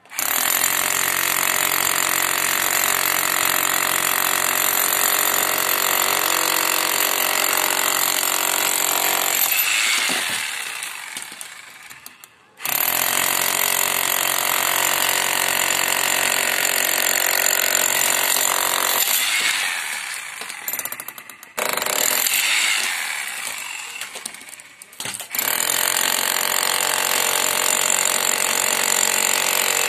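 Corded electric chipping hammer with a pointed chisel bit hammering into a reinforced concrete slab edge: a loud, steady motor whine with rapid hammering. It runs, winds down when the trigger is released, and starts up again several times, with a short burst about two-thirds of the way through.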